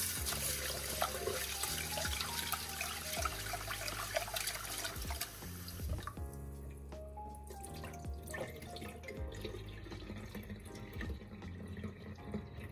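Kitchen tap running into a pot of rice in a stainless steel sink as the rice is rinsed; the tap is shut off about halfway through, leaving small splashes as the cloudy rinse water is tipped out near the end. Background music plays throughout.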